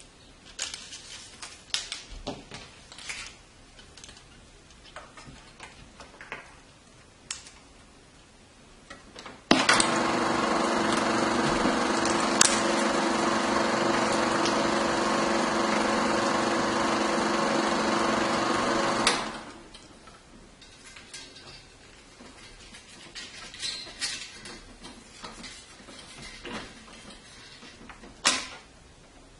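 Bell & Howell 1592 16mm Autoload sound projector switched on and running steadily for about nine seconds, its motor and film mechanism making an even mechanical whir with a steady hum, feeding film leader through its threading path, then switched off. Before and after, scattered clicks and knocks of the metal reels being fitted and the projector being handled, with one sharp knock near the end.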